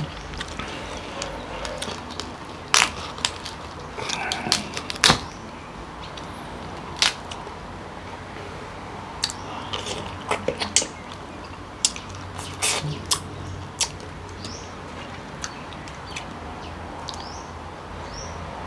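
Close-miked eating of king crab: crab meat pulled from the shell by hand and chewed, heard as sharp clicks, cracks and wet mouth smacks. They come irregularly, the loudest about 3 and 5 seconds in and again around 10 to 13 seconds.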